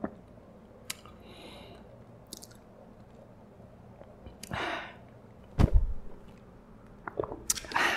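Soft close-miked chewing with small mouth clicks, a dull thump a little past halfway, then sipping a drink through a straw near the end.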